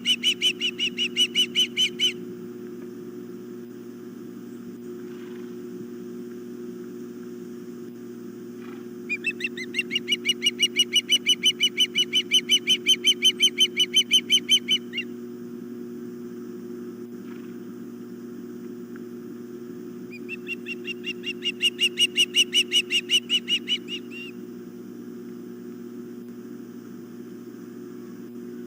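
Osprey calling in rapid series of high whistled chirps, about five a second, in three bouts: one at the start, a longer one in the middle, and one about two-thirds of the way in. A steady low electrical hum runs underneath.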